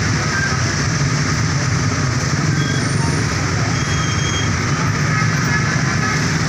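Bus engine running with steady road noise, a constant low rumble.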